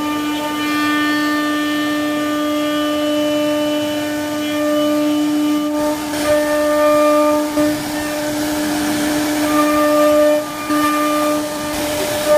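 CNC wood carving router's spindle running with a steady high whine while cutting wood; a rougher cutting noise joins about halfway through.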